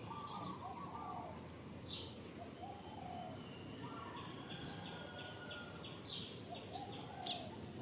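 Birds calling: short lower calls throughout, a quick run of about six high notes in the middle, and a few sharp high chirps, over outdoor background hiss.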